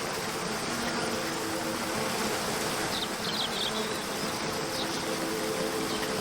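Waterfall rushing steadily, under a soft sustained drone of background music. A few short bird chirps come about three seconds in and again near five seconds.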